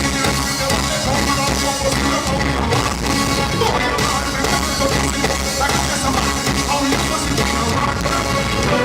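Dancehall music played loud with a steady beat, recorded live in a club.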